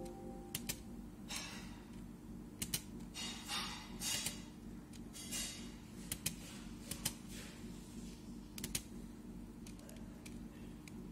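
Irregular clicks of someone working a laptop's keys and buttons, several coming in quick pairs, with a few short rustles between them, over a steady low hum.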